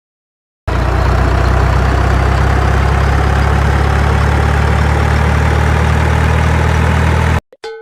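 Heavy diesel engine of a construction machine running steadily at idle, with a deep even hum. It starts and stops abruptly, as if cut in editing. A short 'boing' sound effect follows just before the end.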